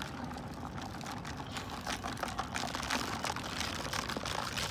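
Crushed dry ice fizzing and bubbling in soapy water inside a plastic bottle: a steady hiss dotted with many small crackles and pops, growing a little stronger about two seconds in, as the subliming carbon dioxide froths the soap.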